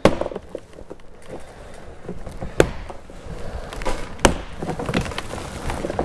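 Plastic retaining clips of a BMW F10 front door trim panel snapping loose as the panel is pried and pulled off the door: several sharp snaps, a loud one right at the start and more about halfway through, over the rustle and creak of the panel shifting.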